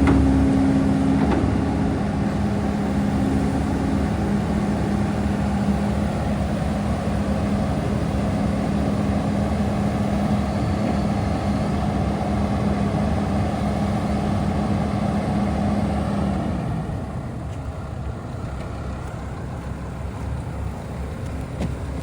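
Doosan DX300LC-5 tracked excavator's engine running steadily with a constant hum, which stops about three-quarters of the way through as the machine goes quieter.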